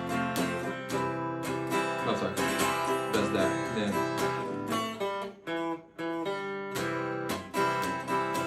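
Acoustic guitar strumming a steady run of chords, with a couple of brief breaks a little past the middle.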